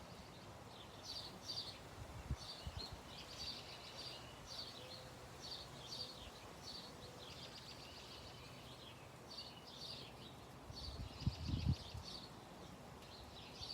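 Several small wild birds chirping in short, repeated calls that overlap almost without a break. A few low thumps come through, a pair about two seconds in and the loudest ones about eleven seconds in.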